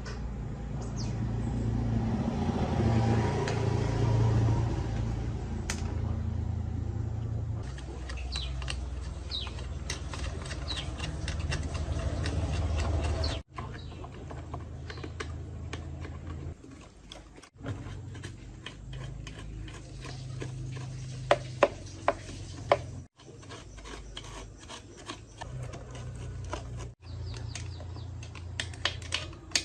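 Workshop work sounds across several short clips: a steady motor hum under scraping, rubbing and sharp clicks of metal parts being worked on, with a few loud taps a little past the middle.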